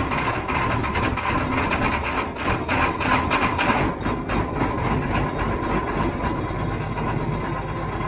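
John Deere tractor's six-cylinder diesel engine running just after a jump-start, heard from the cab, with thick smoke coming from the exhaust stack: a cold start. It runs unevenly for the first few seconds, then settles.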